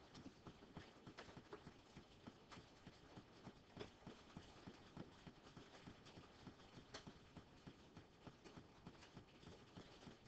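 Near-silent room tone with faint, irregular tapping, several taps a second.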